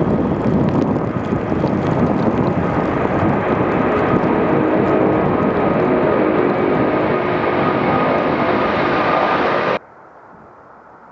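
Airbus A380's four jet engines at takeoff power as the airliner climbs out overhead: a loud rumble with a steady whine in it. About ten seconds in it cuts off abruptly to a much quieter steady noise.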